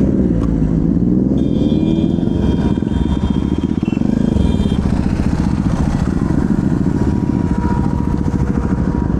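Motorcycle engine running on the move, its pitch dropping briefly and then climbing again about a second in.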